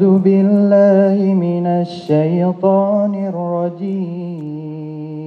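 A man chanting a Quran recitation into a handheld microphone: one melodic solo voice holding long, wavering notes, with short breaths between phrases and a long held note near the end.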